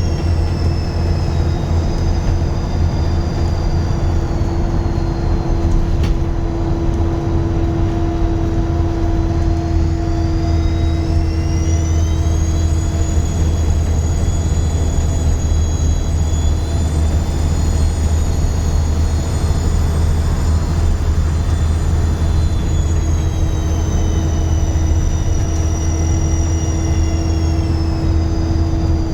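Dennis Trident 2 double-deck bus engine running with a deep, steady drone and a loud, high turbo whistle. The whistle falls away over the first several seconds, rises again about ten seconds in and holds steady, then falls near the end.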